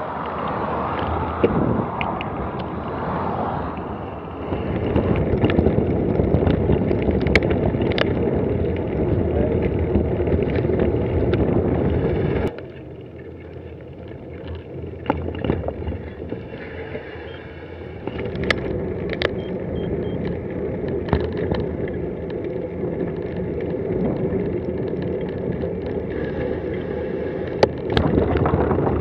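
Riding noise from a bicycle ride: wind rushing over the camera microphone and tyre rumble, with scattered clicks and knocks from bumps. It drops quieter for about five seconds partway through, then picks up again.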